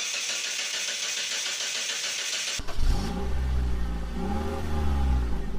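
A steady high hiss, then an abrupt cut about two and a half seconds in to a Mitsubishi Lancer running in gear with a loud low drone whose pitch rises and falls. It is the noise the mechanic suspects is coming from the transmission.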